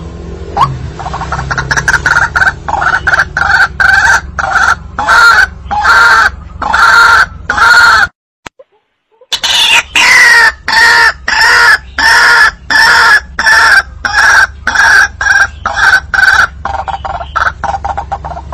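White-breasted waterhen (ruak-ruak) calling, a loud repeated croaking 'kru-ak' about twice a second. This is a recorded lure call for drawing waterhens out of cover. The calling breaks off for about a second just before the middle, opens again with a falling note, then carries on.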